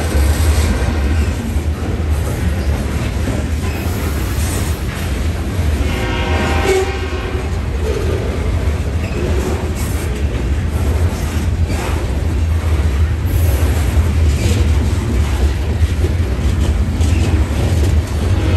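Covered hopper cars of a freight train rolling past close by: a steady low rumble of steel wheels on rail, with clicks as the wheels pass over rail joints. About six seconds in there is a brief pitched tone.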